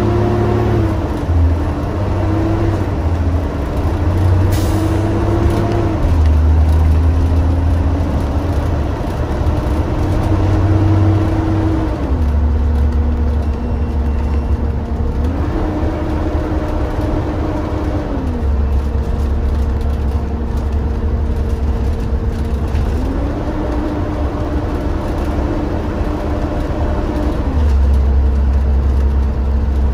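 Cummins ISB 6.7 diesel engine of a bus running under way, heard from the driver's seat, its note stepping up and down between a lower and a higher pitch several times.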